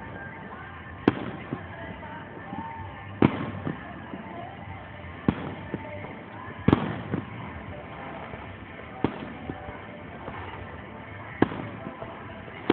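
Aerial fireworks shells bursting: about six sharp booms, roughly two seconds apart, each trailing off in a short echo.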